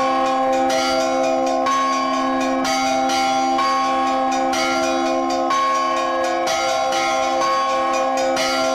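Orthodox church bells rung by pulling ropes on their clappers: a large bell and several smaller bells struck in a repeating pattern, about one strike a second with quicker strokes between, the tones ringing on and overlapping.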